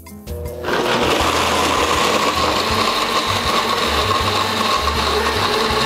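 Countertop blender switching on under a second in and running steadily at full speed, crushing ice and liquid into a frozen slush drink.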